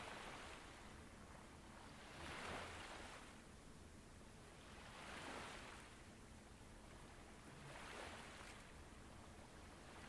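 Faint ocean waves washing on the shore, a soft surge of surf rising and falling about every three seconds.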